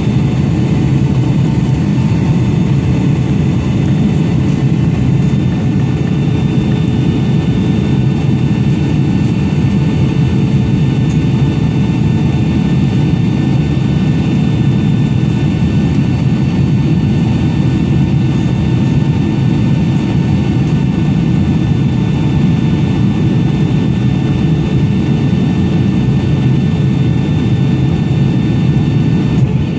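Jet airliner cabin noise from a seat over the wing: a steady low rush of engine and airflow noise with a faint constant engine whine above it, on approach at low altitude.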